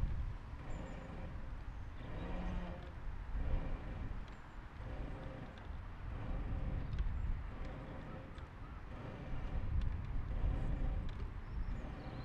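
Wind on the microphone, under repeated faint clicks and creaks from a TU16 Tirfor hand winch as its forward lever is pumped back and forth to haul a load on the wire rope.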